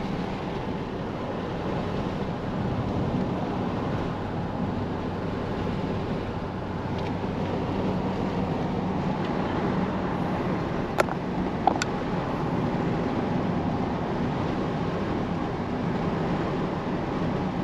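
Pickup truck driving on a paved road, heard from inside the cab: steady engine and tyre road noise with a low hum. Two sharp clicks a little under a second apart, past the middle.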